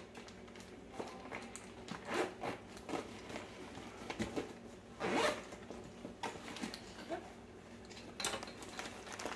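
Zipper of a camouflage fabric tactical pouch being pulled open in a series of short rasping pulls, the strongest about two seconds in and about five seconds in.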